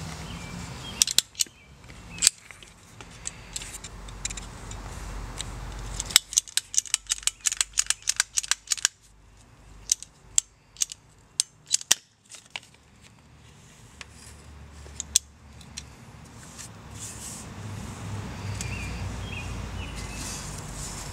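Ratcheting pipe cutter clicking as it is squeezed shut through a plastic geothermal loop pipe: a few sharp clicks about a second in, then fast runs of clicks from about six to twelve seconds in as the blade works through the pipe.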